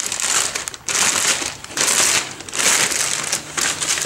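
Clear plastic packaging bag crinkling as it is handled, in several bursts with short breaks between them.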